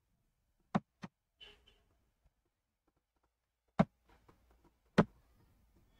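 A few sharp computer mouse clicks: two faint ones about a second in, then two louder single clicks about four and five seconds in, with near quiet between them.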